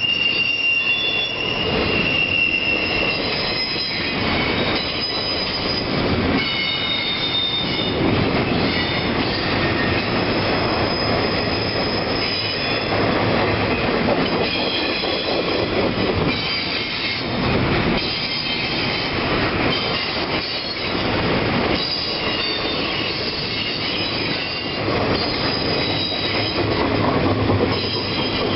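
Norfolk Southern freight train of autorack and intermodal cars rolling past with a steady rumble, its wheels squealing on the rails in high-pitched tones that come and go.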